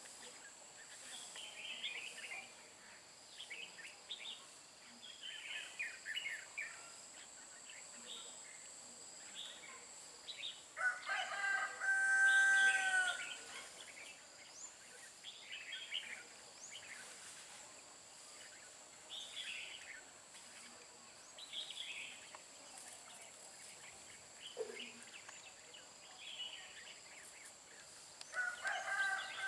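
Red-whiskered bulbuls giving short chirping calls and song phrases throughout. A rooster crows loudly about a third of the way in and again near the end. A steady high-pitched whine runs underneath.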